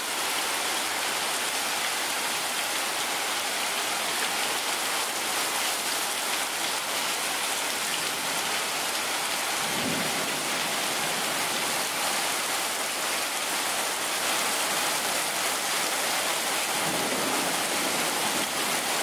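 Heavy rain pouring down onto a paved driveway: a steady, even hiss.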